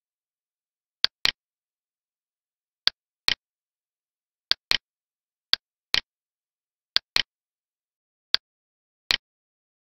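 Computer mouse button clicks: about six quick press-and-release pairs, each pair two sharp clicks a fraction of a second apart, with dead silence between them.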